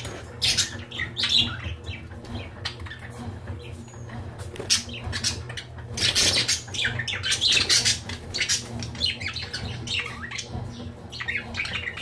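Several budgerigars chattering and squawking, a constant stream of short, scratchy, high calls that is busiest around the middle.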